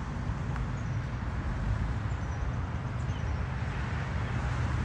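Steady outdoor background noise: a low rumble with an even hiss over it and a few faint high chirps.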